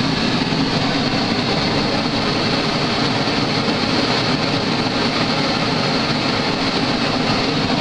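Two homemade venturi propane forge burners firing together, making a steady, loud roar of gas and flame.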